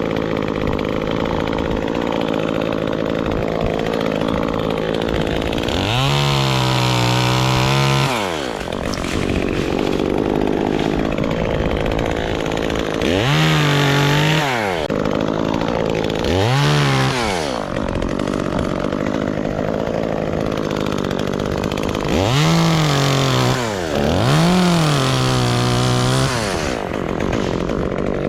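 Gas chainsaw running at idle and revved up five times, each time rising in pitch, holding for a second or two, then dropping back to idle.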